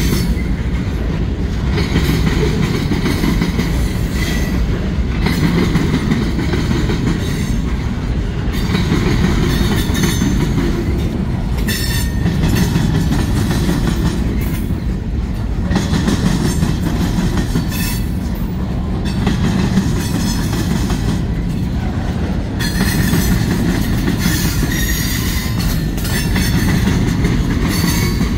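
Freight train's cars rolling past on the rails: a steady, loud rumble of wheels on track, with a faint squeal of wheels coming and going.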